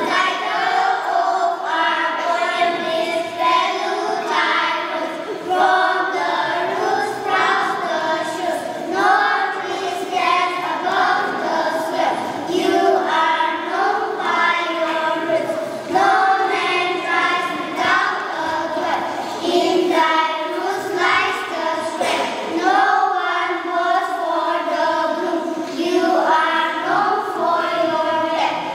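A group of young children reciting a poem together in unison, their voices in a steady rhythm of phrases.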